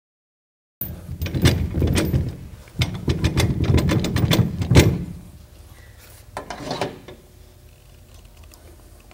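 A string of knocks, clanks and scraping from metal towing hardware being handled, with dead silence for the first moment and the sounds dying down after about five seconds.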